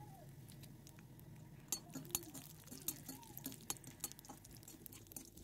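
A steel spatula stirring cashews as they fry in an iron kadai, making irregular metal-on-metal clinks and scrapes against the pan that come thick from about two seconds in. Under them is a faint steady hiss of frying.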